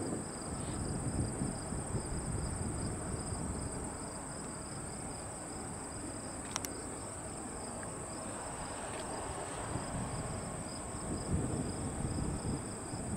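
A steady, high-pitched insect chorus from the summer grass, one part pulsing quickly, over a low rumble of wind and distant airport noise. A single sharp click sounds about halfway through.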